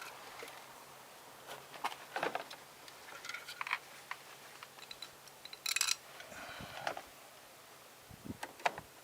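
Light clicks, taps and rustling of a plastic car inner door handle and its parts being handled, with a cluster of sharper clicks about six seconds in.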